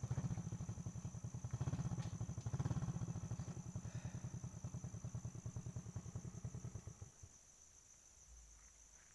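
Motorcycle engine running with an even low pulsing beat, dying away about seven seconds in. A steady high insect trill, like crickets, carries on throughout.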